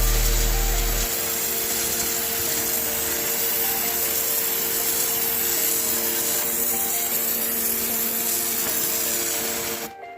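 Portable electric high-pressure washer running, its motor humming steadily under the loud hiss of the water jet spraying. It stops abruptly near the end.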